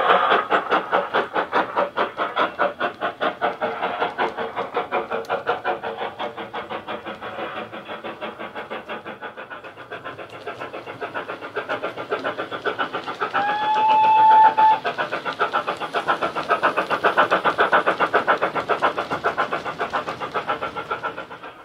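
Model steam locomotive's Loksound 5 sound decoder playing a GWR Hall class steam sound file through its megabass speaker: a steady, rapid run of exhaust chuffs that fades as the model runs away and grows loud again as it returns. About two-thirds through comes one short whistle blast.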